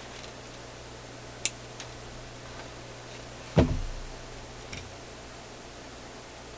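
Handling noise on a workbench: a sharp click, a louder thump about halfway through and a small click after it, as parts and tools are picked up and moved, over a steady low hum.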